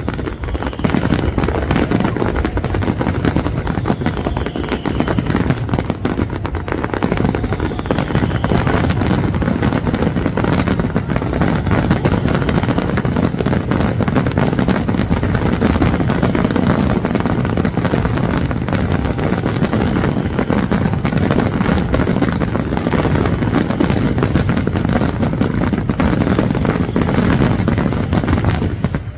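Aerial fireworks finale: many shells bursting with crackling in a dense, unbroken barrage.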